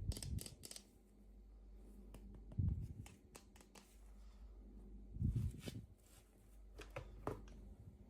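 Packaging being handled and opened by hand: four short bursts of rustling and clicks, each with a soft low bump.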